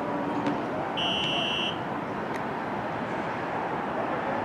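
Steady noise of a subway station with a train around, cut about a second in by one high electronic beep lasting under a second.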